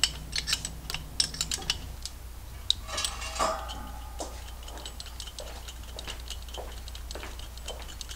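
Small metal clicks and clinks of hand tools working at the pushrods of a Harley-Davidson M8 V-twin. The clicks come quickly at first, there is a short clatter with ringing about three seconds in, and fainter ticks follow.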